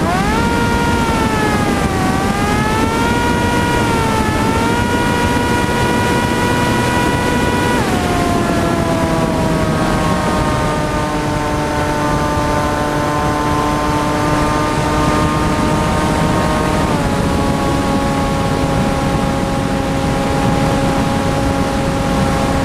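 Electric motor and propeller of a TBS Caipirinha flying wing, heard through the onboard camera over a constant rush of wind. Its whine rises and falls with the throttle for the first several seconds, drops sharply about eight seconds in, holds steady lower, and steps down again about seventeen seconds in.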